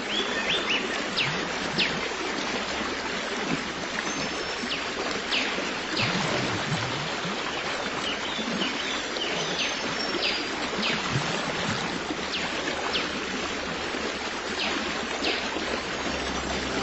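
A stream of running water, with birds giving short, quick downward chirps scattered throughout.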